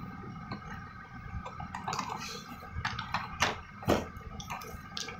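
Plastic toy car being handled and set down on a glass counter: a few sharp clicks and knocks, the loudest about four seconds in.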